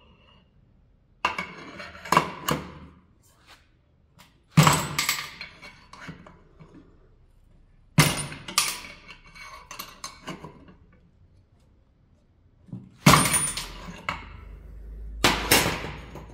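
Homemade wrench-levered round bar cutter shearing 6 mm mild steel round bar: several sharp metallic snaps and clanks a few seconds apart as pieces are cut off, with steel knocking on steel. The cuts come out clean.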